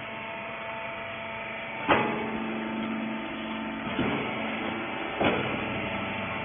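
A hydraulic rag baler's machinery running with a steady hum, with three sharp metallic knocks about two, four and five seconds in.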